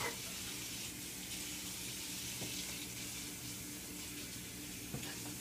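Steady kitchen background noise: an even hiss with a low, steady hum beneath it, and a faint click about two and a half seconds in and another near the end.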